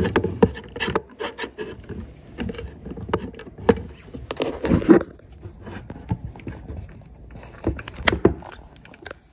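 Handling noise as a phone is picked up and set back down beside the pots on a stove: irregular knocks, clicks and rustles, loudest about five seconds in and again near eight seconds.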